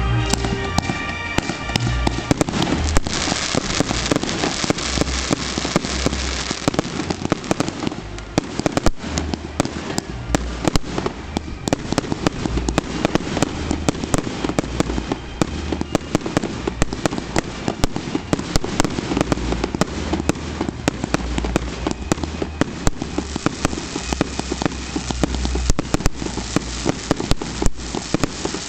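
Fireworks display: aerial rockets and shells bursting, with many sharp bangs over a dense crackle. Music is heard under it for about the first two seconds.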